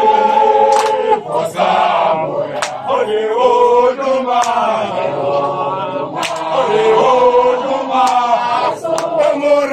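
A group of voices singing a slow chant together, holding long notes that shift in pitch, with a few sharp hits now and then.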